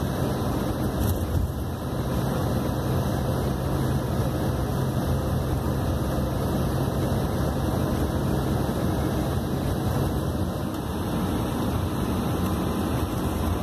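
Steady engine drone and running noise of an intercity coach bus, heard from inside the passenger cabin, with a constant low hum.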